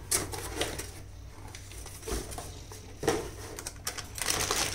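Clear zip-lock plastic bag crinkling as hands pick it up and handle it on a tabletop, in short rustles with quieter gaps between them.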